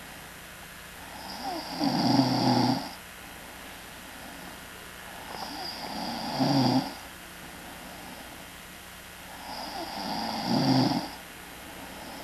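A man snoring loudly in his sleep: three long snores about four seconds apart, each swelling and loudest at its end.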